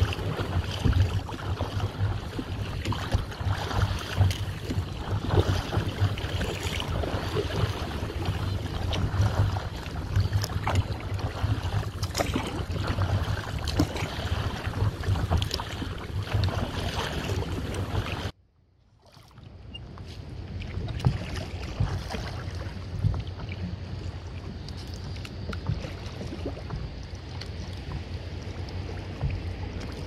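Wind buffeting the microphone of a camera mounted on a stand-up paddleboard, over small waves lapping and splashing against the board. Partway through the sound cuts out for a moment and comes back quieter.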